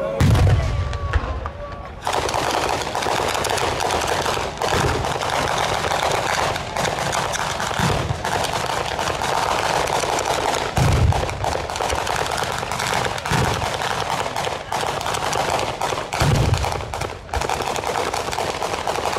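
Ground-fired bolognese-style firework battery going off. It opens with a deep boom and a fading whistle, then from about two seconds in turns into a dense, continuous barrage of rapid crackling bangs, with deeper booms every few seconds.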